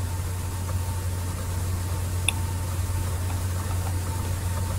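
Steady low hum with an even hiss and a faint steady high tone, with a single faint click a little over two seconds in.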